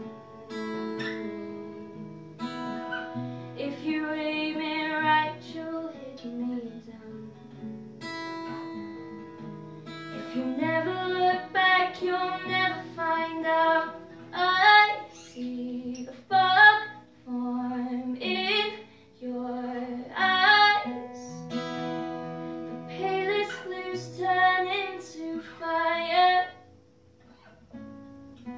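A woman singing to her own strummed acoustic guitar, her held notes wavering with vibrato. The music drops low briefly near the end.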